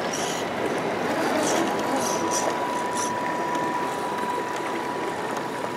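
RC scale crawler trucks' electric motors and gear drivetrains whining with a steady tone as they drive through a shallow rocky stream, over the rush of the water.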